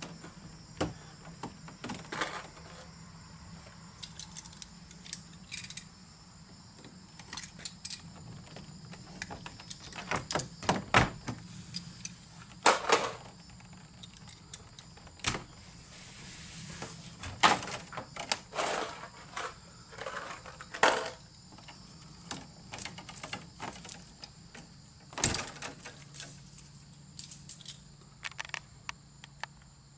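Irregular clicks, taps and scrapes of hands working a 10-3 electrical cable and small tools, as the cable's outer jacket is stripped back to free its wires, over a faint steady hum.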